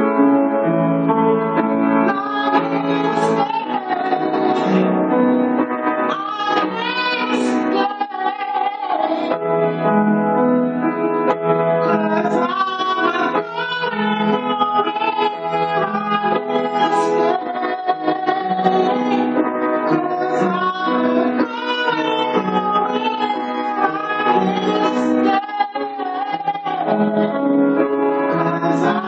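Music: a keyboard instrument played with sustained chords and a melody, with a voice singing over it.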